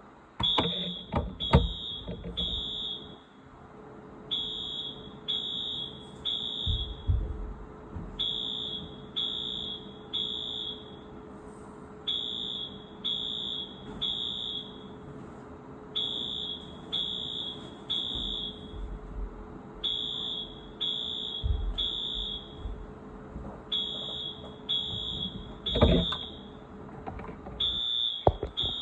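Wheelock fire alarm horn sounding the temporal-three evacuation pattern: three high-pitched beeps, then a pause, repeating about every four seconds. A faint steady hum runs beneath it, and there is a sharp knock near the end.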